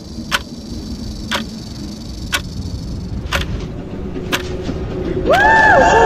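Clock ticking once a second, each tick sharp, over a low rumble that slowly swells. About five seconds in, several pitched tones slide in and hold, louder than the ticks.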